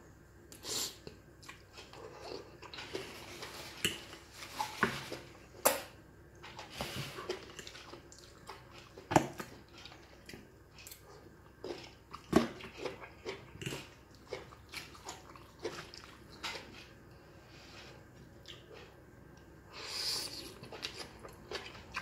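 Close-up eating sounds: noodles being slurped and chewed, with many short sharp clicks scattered through, a few of them louder, from a metal fork on the ceramic plate and in the mouth.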